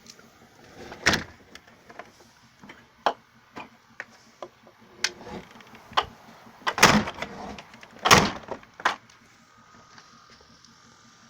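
A series of irregular sharp knocks and clicks, about a dozen, with the loudest about a second in and a heavier cluster around seven to eight seconds in; they stop about nine seconds in.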